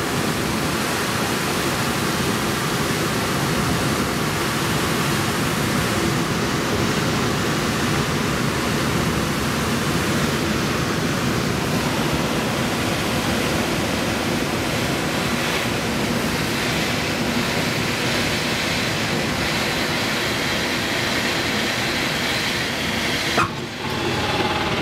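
Steady rush of air past a glider's canopy in flight, heard from inside the cockpit. Near the end a sharp knock, and the rush gives way to a lower, shaking rumble of the glider on the runway.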